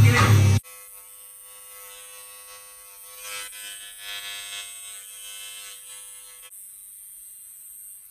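Electric hair trimmer running with a steady buzz as it edges the hairline, stopping about six and a half seconds in. A loud burst of bass-heavy music cuts off in the first half-second.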